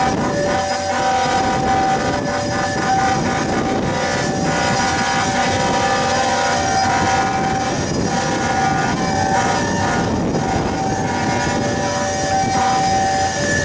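Fokker 70 jet airliner's Rolls-Royce Tay turbofans whining steadily at low taxi power, over the rush of fire-tender water cannon spraying across its path.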